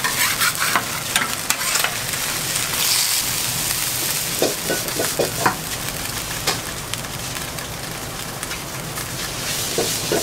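Food sizzling steadily as it fries in a hot pan, with scattered short knocks of utensils against the pan.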